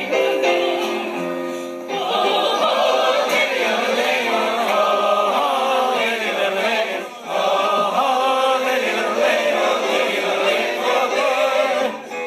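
Audience singing along in chorus with a woman on a yodelling refrain. One voice holds notes at first, then about two seconds in many voices come in together; there is a brief dip about seven seconds in, and the singing falls away near the end.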